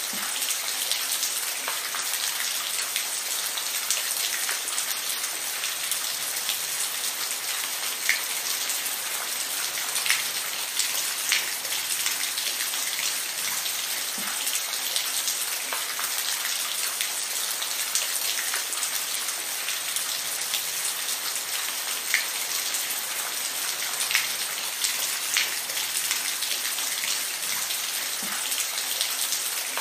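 Steady rain falling, an even hiss of many drops with scattered single drops ticking out more sharply above it.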